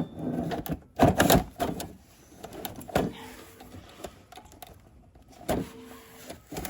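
Plastic clunks and clicks from handling a Greenworks 80 V battery snowblower, the battery being pulled out and pushed back into its compartment after the machine failed to start. There are several sharp knocks, the loudest about a second in, with quieter handling noise between them.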